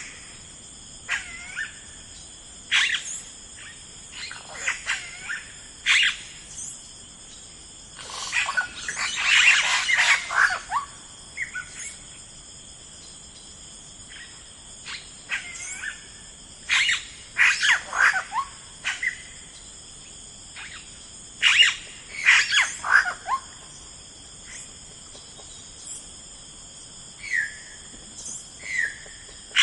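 Wild birds calling and chirping in short, sweeping phrases, coming in clusters with brief lulls between. A steady, high-pitched drone runs underneath throughout.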